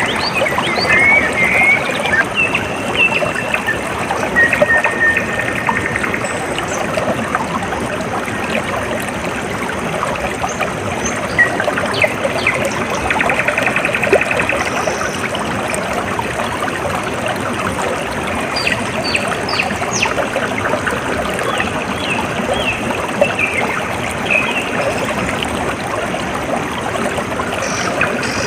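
Water trickling and running steadily in a stream, with small birds chirping and trilling now and then over it.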